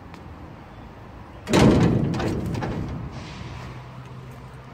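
A metal garden gate slamming shut about a second and a half in: one heavy bang that rings on and fades over a second or so.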